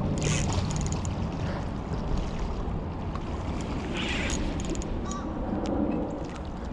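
Steady wind buffeting the microphone over rushing river water, with two short brighter noises, about a quarter second in and about four seconds in.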